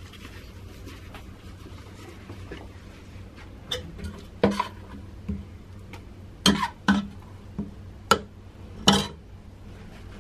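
Metal spoon knocking and scraping against the rim and handle of a stainless steel pot while corn masa is scooped out: about eight short, sharp clinks starting about four seconds in, irregularly spaced.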